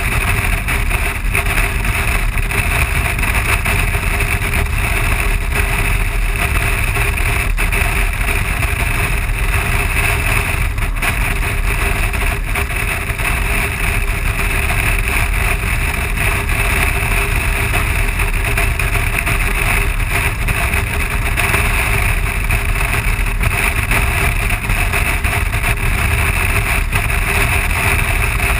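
Steady wind rush and low rumble on the bike-mounted camera's microphone at highway speed, over the constant drone of a BMW R 1200 motorcycle's boxer-twin engine cruising without change in revs.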